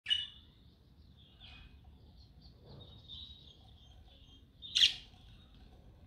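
Budgerigars chirping and warbling: a soft, continuous chatter with two loud sharp chirps, one right at the start and one about a second before the end.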